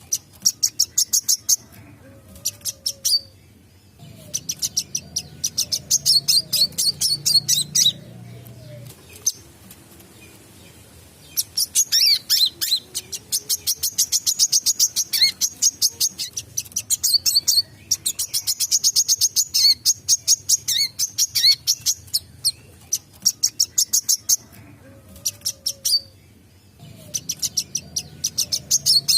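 Wiceh (a sunbird) in full song, giving long phrases of very rapid, high chattering trills. Each phrase lasts several seconds, with short pauses between.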